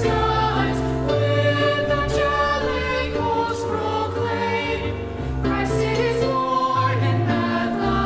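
Mixed high school choir singing a Christmas carol in held chords over a deep bass line.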